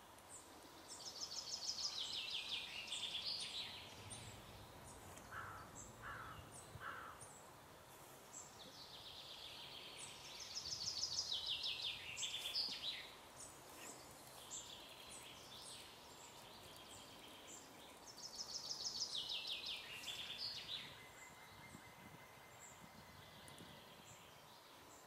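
Animal call: a rapid trill of many quick pulses falling in pitch, about two to three seconds long, repeated three times.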